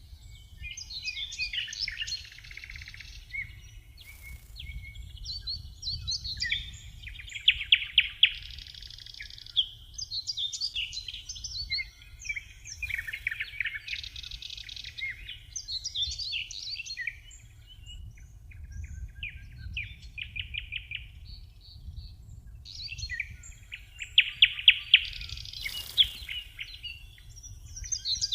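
A songbird singing long, varied phrases of whistles and fast trills, a new phrase every few seconds, over a low steady rumble.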